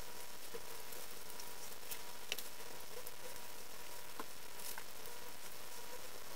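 A man chewing a bite of cheeseburger: scattered small wet mouth clicks, the clearest a little over two seconds in, over a steady hiss and a faint steady hum.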